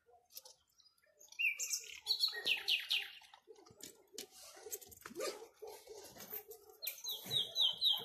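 Common nightingale singing: phrases of rapid, repeated whistled notes, with loud runs about two seconds in and again near the end.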